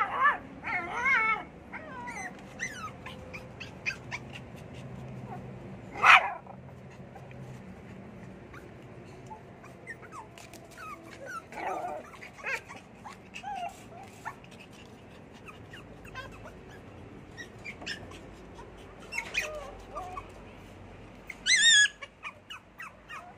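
Poodle puppies yipping and whimpering in short, high-pitched, wavering calls scattered throughout, loudest about six seconds in and again near the end.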